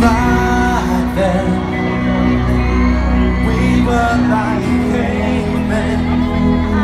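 Live pop band music heard from among the audience through a big concert PA: sustained low bass and chords, with a singer's voice over them.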